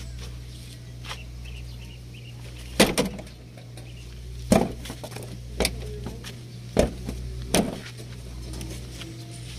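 Truck front grille panel being shut and pressed against its freshly oiled latch: a loud double clunk about three seconds in, then four more clunks over the next five seconds, over a steady low hum.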